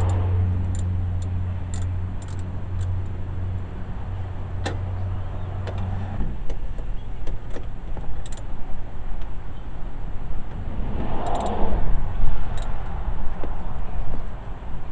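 A steady low electric motor hum that cuts off about six seconds in, followed by scattered clicks, knocks and rustling from the driver's seat being worked loose from a car's floor.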